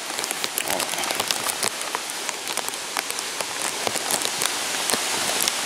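Heavy rain pouring down, with many sharp taps of drops striking a plastic Ziploc bag over the camera.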